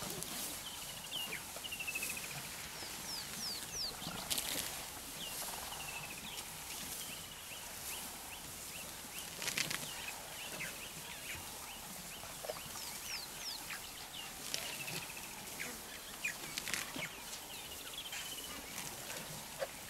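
Birds calling in the bush: a falling run of high notes repeated every few seconds, among scattered chirps. A few short, louder crackles, about four and ten seconds in and again near the end, come from a herd of African elephants moving and feeding through long grass.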